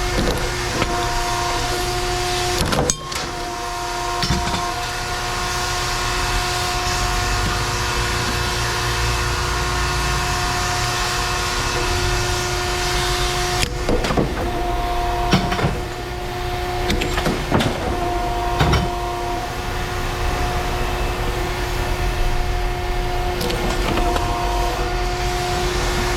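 A steady machine hum whose tones drop out and come back several times, with a few sharp knocks along the way.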